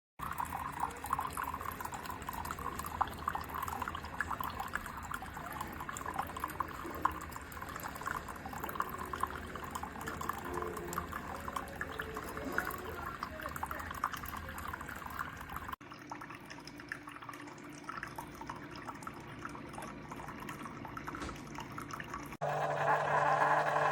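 Coffee maker dispensing hot water into a cup, a steady gurgling, splashing stream of liquid. The sound changes abruptly twice and is loudest near the end.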